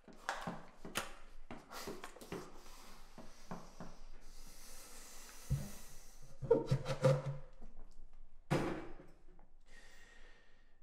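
Handling sounds: scattered light knocks and taps, a stretch of rubbing about four seconds in, and a sharper knock a little past eight and a half seconds.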